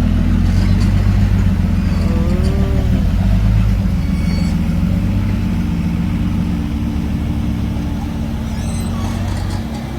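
Diesel engine of a Hino dump truck running loud under power, its pitch shifting slightly about four seconds in, then slowly fading as the truck moves away.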